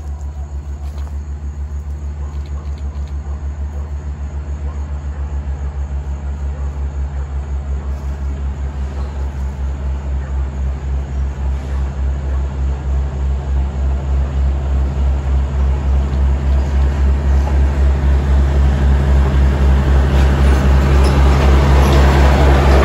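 Small diesel switcher locomotive approaching on a freight train, its engine pulsing with a steady low beat that grows gradually louder. Near the end the noise of its wheels on the rails rises as it draws level.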